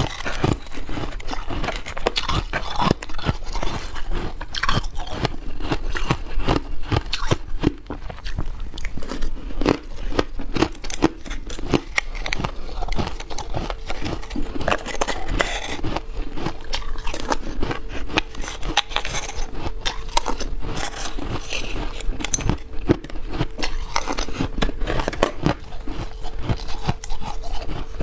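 A thin, frost-coated slab of ice being scraped with a metal spoon and bitten and chewed, a close, unbroken run of sharp crunches and scrapes.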